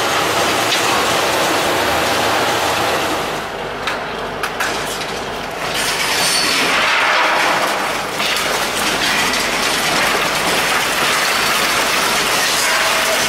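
Concrete silo demolition: a steady rattling rush of rubble with a few sharp knocks about four seconds in, swelling into a louder pour of crumbling concrete a couple of seconds later.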